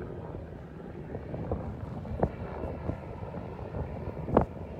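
Wind buffeting the microphone over the steady sound of a helicopter in flight, with irregular thumps from the gusts, the strongest near the end.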